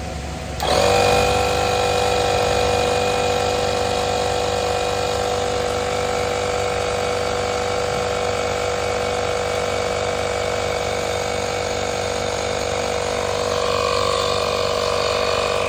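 AstroAI portable air compressor starting up about a second in and then running steadily and loudly, pumping air into a car tyre through its valve nozzle.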